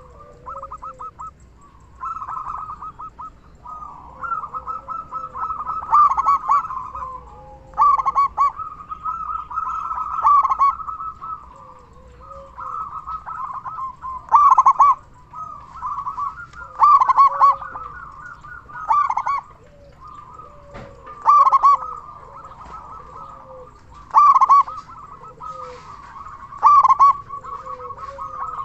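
Zebra dove (perkutut) in full song with a big voice: runs of rapid, rattling coo notes, one after another, with a loud accented note every two to three seconds in the second half.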